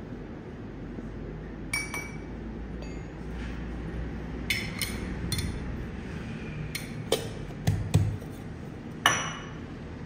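Light metallic clinks of a spoon against a stainless dosing cup, then sharper, ringing knocks as the cup is tapped onto the portafilter's dosing funnel to drop the ground coffee in, the loudest near the end. A steady low hum runs underneath.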